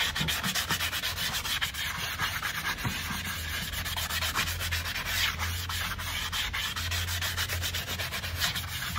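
A brush scrubbing the wall of a horse's freshly shod hoof in quick back-and-forth strokes, several a second, cleaning the foot up after shoeing.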